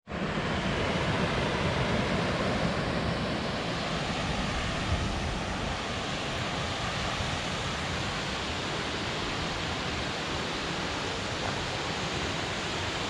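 Steady rushing of the Tallulah River's waterfalls far below in the gorge, a little louder in the first few seconds, mixed with low wind rumble on the microphone.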